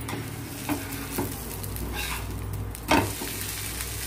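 Thin batter sizzling steadily as it fries on a hot black iron tawa, with a few light taps and a sharper click about three seconds in.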